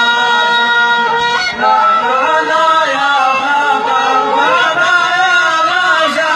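Men chanting Arabic Bedouin sung poetry in the Saibani 'sawt' style. A long held note breaks about one and a half seconds in into a wavering, ornamented melodic line.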